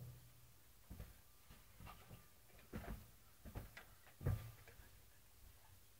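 Quiet room with a few faint, scattered light knocks and taps, the loudest about four seconds in.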